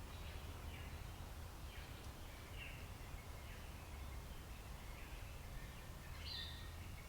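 Birds chirping faintly in the background, short falling chirps about once a second, over a low steady rumble of outdoor ambient noise.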